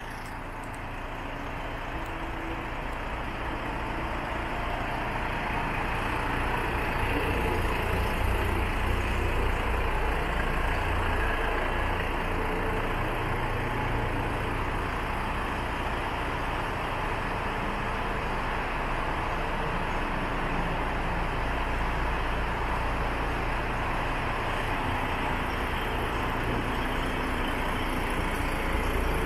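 DAF CF85 tractor unit's Paccar MX 410 hp inline-six diesel idling steadily, with a deep low rumble. It grows louder over the first several seconds, then holds even.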